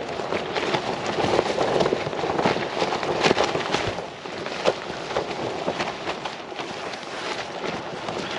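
Strong wind blowing over the microphone, with irregular sharp cracks and snaps of tent fabric flapping in the gusts. It eases briefly about four seconds in.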